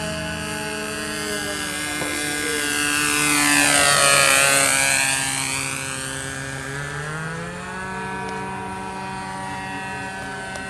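Radio-controlled model airplane engine droning through a low fly-by. It grows louder to a peak about four seconds in, then drops in pitch as the plane moves away.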